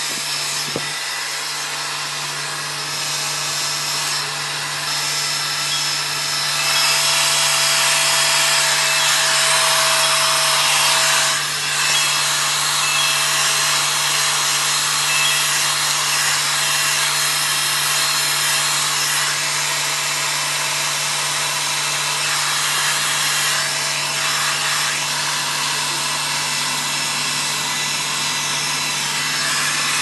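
Hand-held hair dryer running steadily as hair is blow-dried over a round brush, a constant rush of air with a steady whine. It gets louder about seven seconds in and dips briefly a little before the middle.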